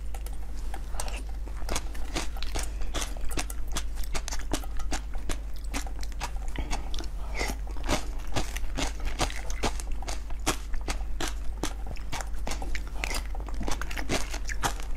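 Close-miked crunching and chewing of a frozen block of small purple jelly beads, with a metal spoon scraping and digging into it: a dense, irregular crackle of many small crunches a second. A steady low hum sits underneath.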